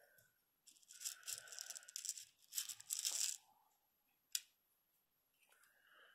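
Fingers picking through seed beads in a plastic compartment box, a faint rattling rustle in two spells of about a second each, followed by a single sharp click.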